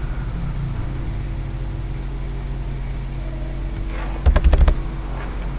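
Steady low electrical hum, with a quick run of several sharp clicks a little over four seconds in.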